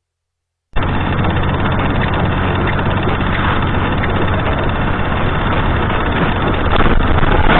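Car engine and road noise, steady, starting abruptly a little under a second in after silence.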